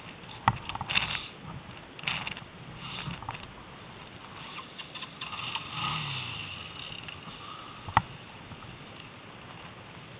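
Rattling, rushing noise from an SMC ATV ridden over snow, with two sharp knocks, one about half a second in and a louder one about eight seconds in.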